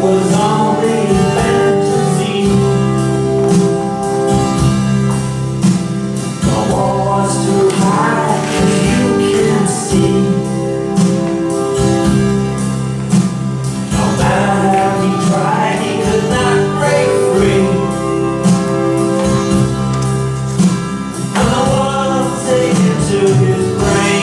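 Music with a choir singing in a gospel style over a steady accompaniment.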